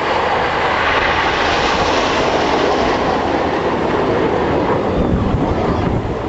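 Loud, steady jet noise from the Red Arrows' BAE Hawk jet trainers flying over.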